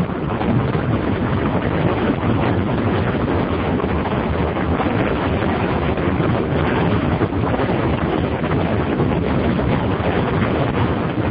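BMW F650 Funduro motorcycle ridden at steady road speed: wind rushing steadily over the microphone, with the engine running underneath.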